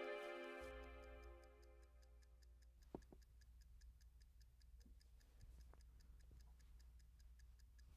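Soft music fades out over the first second or two, leaving near silence with a faint, regular ticking at several ticks a second over a low hum. There is a faint knock about three seconds in.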